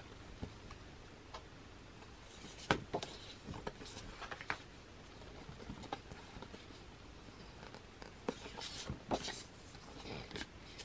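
Glossy pages of an album photo book being turned and handled: irregular paper rustles and flicks, busiest about three seconds in and again near nine seconds.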